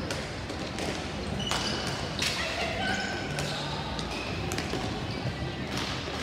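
Ball hockey game in play: sharp knocks of sticks and the plastic ball at irregular intervals, with players calling out.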